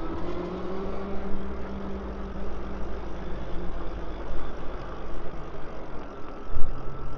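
Wind rushing over the camera microphone and road rumble from a moving e-bike, with a steady electric hum underneath and a brief louder gust about six and a half seconds in.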